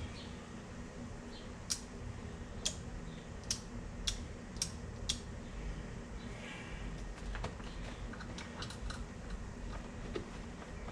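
Sharp small clicks from hands working the side-by-side's dash wiring and switches: six crisp clicks, each about half a second to a second apart, then softer scattered clicking and rustling, over a steady low hum.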